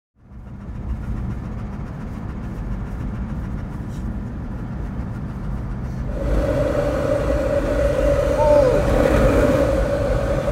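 Ford Ranger pickup driving on a dirt forest road: a steady low rumble of engine and tyres heard from inside the cab. About six seconds in, the sound turns louder, with a steady mid-pitched hum and a short falling whistle.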